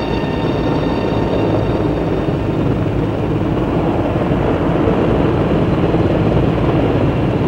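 Sikorsky S-64 Skycrane heavy-lift helicopter hovering with its lift frame slung below, a steady rotor and turbine noise that grows a little louder in the second half.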